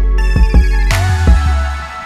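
Background music with a strong bass line and a steady drum beat, cutting off near the end.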